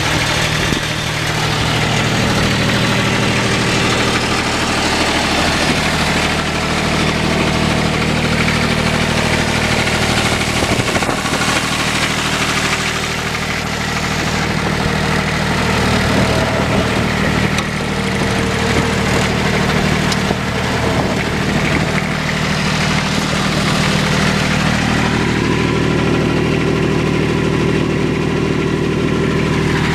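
Loader backhoe's diesel engine running steadily at idle, with a higher tone coming in and going out a couple of times.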